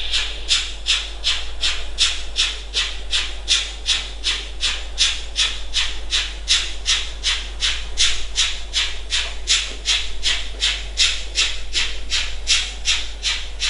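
Model steam locomotive chuffing steadily, about three chuffs a second, as the class 042 climbs a grade hauling a goods train, most likely from its sound decoder.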